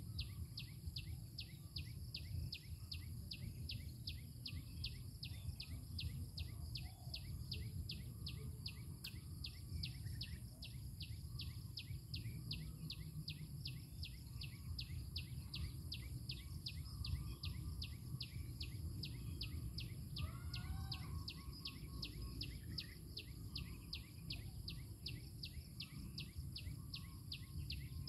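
Open countryside ambience: an even train of high chirps, about three a second, over a constant high insect drone and a low rumble. A short bird call comes about twenty seconds in.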